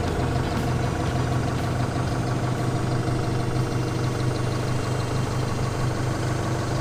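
Forklift engine idling steadily.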